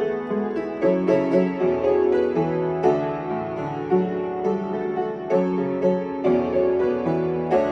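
Solo piano playing a pop song arrangement: a melody over chords, with a moving bass line and evenly spaced note attacks.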